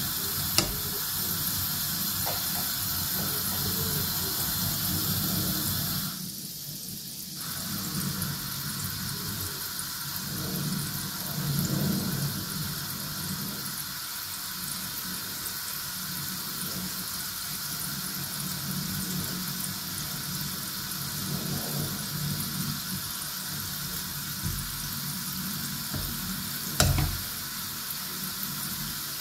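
Milk-powder gulab jamun balls deep-frying in oil in a wok, a steady sizzle, as a wire spider strainer turns them. A single sharp knock near the end.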